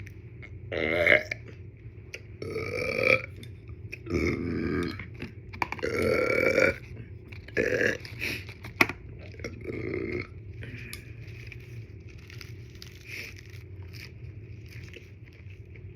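A person burping repeatedly: about seven loud, drawn-out burps of varying length come one after another over the first ten seconds, then it goes quiet apart from faint background sound.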